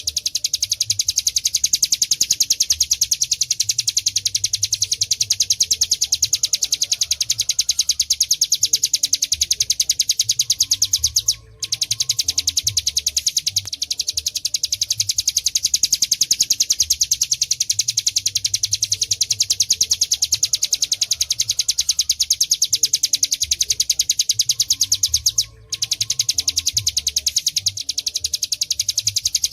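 Ciblek gunung singing its rapid 'ngebren' song: a continuous, very fast, even trill of high notes, broken by two short pauses, about eleven and twenty-five seconds in.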